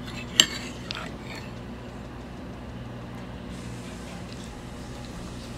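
A metal spoon clinks against a ceramic bowl of stew, sharply about half a second in, lightly again a moment later, and once more at the very end, over a steady low hum.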